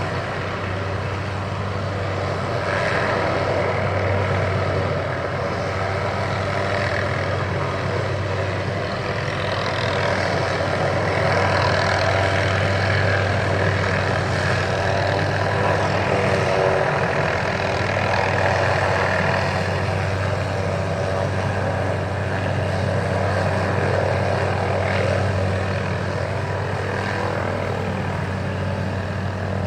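Helicopter hovering with a steady low rotor and engine drone that holds level throughout.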